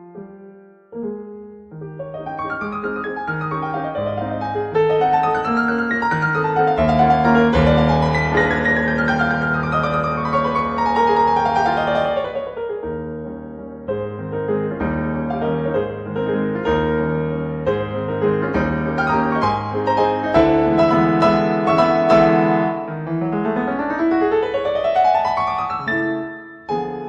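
Background piano music: gentle chords with sweeping runs of notes, falling in the middle and one long rising run near the end.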